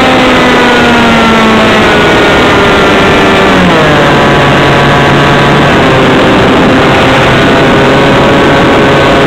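Glow-plug model aircraft engine on an RC P-51 model, heard right beside it, running at high revs, then dropping sharply in pitch about three and a half seconds in as the throttle is pulled back, and running steadily at the lower speed, picking up slightly near the end. A rush of air noise runs underneath.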